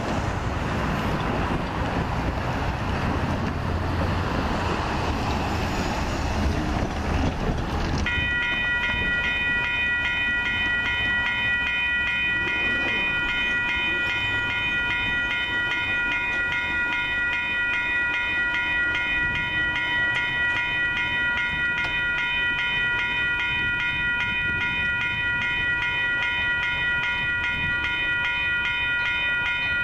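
Wind and traffic noise, then about eight seconds in a railroad grade-crossing warning bell starts and keeps ringing steadily, its crossing signals activated by an approaching train.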